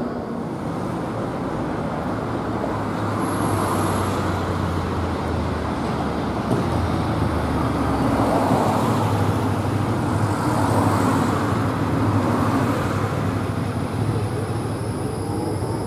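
Flexity low-floor tram approaching along a city street and running past close by, its drive hum under steady road-traffic noise, with a motorcycle going by partway through.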